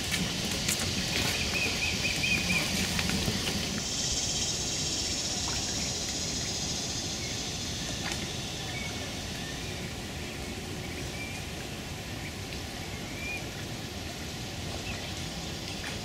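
Steady outdoor background noise. A short, high, trilled bird call comes about a second in, and a few faint chirps follow later; a higher hiss swells for a few seconds in the middle.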